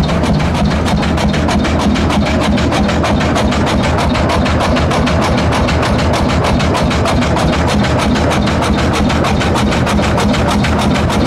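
Vintage tractor engine running steadily with an even, rapid knocking beat of about six strokes a second over a low hum.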